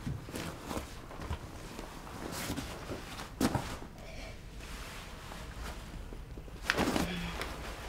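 Handling noise as a person shifts on a leather sofa and handles a cloth bag: scattered rustles, creaks and soft knocks, with two louder noises about three and a half and seven seconds in.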